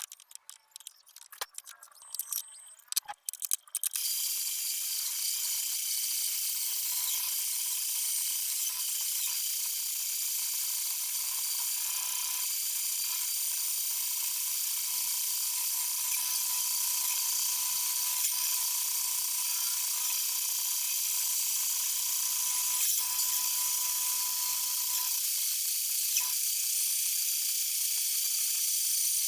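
A few clicks and knocks, then about four seconds in a homemade bandsaw's blade sets up a steady high hiss as it cuts through jackfruit wood. A thin steady whine runs under the hiss and stops a few seconds before the end.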